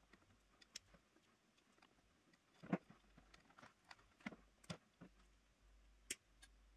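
Faint, irregular clicks and ticks of pliers, wires and spade connectors being handled at a table saw's plastic switch box, the loudest a little under three seconds in.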